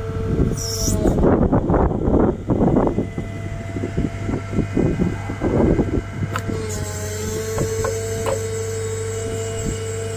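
CAT M314 wheeled excavator running with a steady whine while its ripper tooth digs through soil and broken concrete of a fence foundation. Irregular crunching and scraping go on for the first six seconds or so, then the machine's steady running sound is left with only a few knocks.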